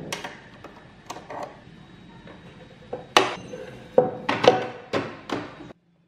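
Clicks and light metallic knocks as a metal bobbin case is fitted into a Janome sewing machine's front-loading hook and the machine's parts are handled. There are several sharp taps, some with a short ring, and they are loudest in the second half. The sound cuts off suddenly near the end.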